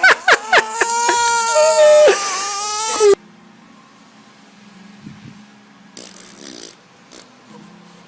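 A newborn baby crying: a loud wail that rises and falls in pitch, cut off sharply about three seconds in. Then faint room noise, with a brief burst of hiss about six seconds in.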